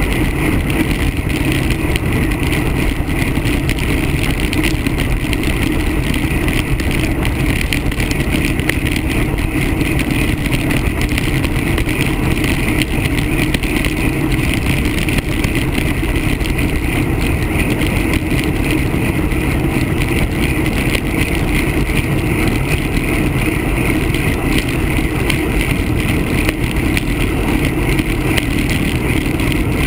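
Steady wind rush on the microphone of a handlebar-mounted camera on a moving road bike, mixed with the hum of tyres rolling on asphalt.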